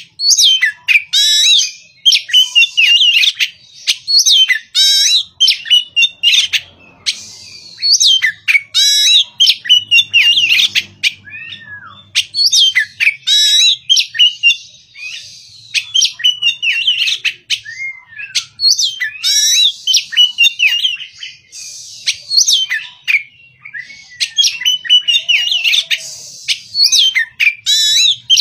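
Oriental magpie-robin singing loudly: a run of varied whistled and chattering phrases, repeated every second or two with short pauses between them.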